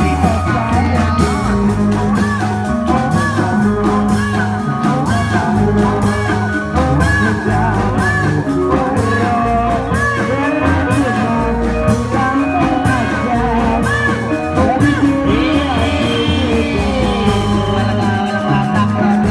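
Loud bendrong dangdut music: a steady percussion beat under a singing voice and wavering melodic lines.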